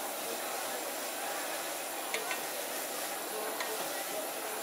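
Shrimp and greens stir-frying in a hot wok over a gas burner: steady sizzling, with a few light clicks of the metal ladle against the wok about two and three and a half seconds in.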